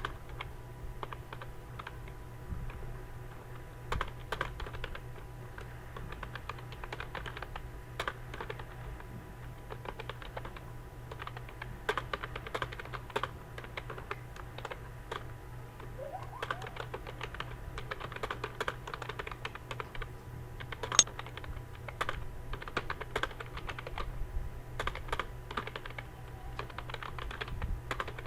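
Fast typing on a computer keyboard: a continuous, irregular stream of key clicks during a timed typing test, with one louder keystroke about 21 seconds in. A steady low hum runs underneath.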